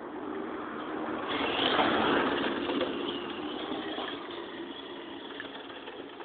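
Radio-controlled drift car driving off across rough asphalt: its electric motor whines and its hard tyres hiss on the surface, loudest about two seconds in, then fading as the car moves away.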